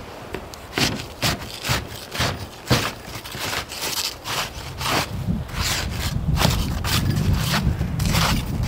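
Snow shovel scraping snow in short strokes, about two a second. Wind rumbles on the microphone from about six seconds in.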